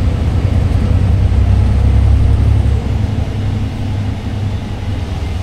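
Inside a VDL Citea SLE-120 city bus under way: its DAF PR183S diesel engine and road noise make a steady low rumble, easing slightly about three seconds in.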